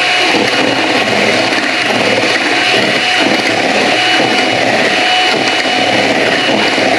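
Electric blender running steadily on a low setting, mixing flan batter of eggs, milk and sugar substitute, kept slow so the batter doesn't foam too much. A steady motor whine runs through the churning.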